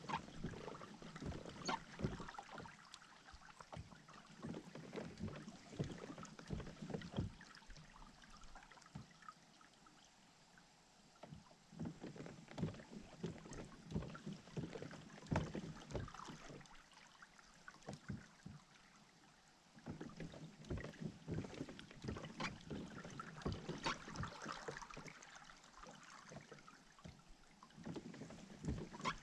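Water lapping and splashing at the hull of a Hobie kayak under way, with irregular small knocks and taps. It eases off briefly twice.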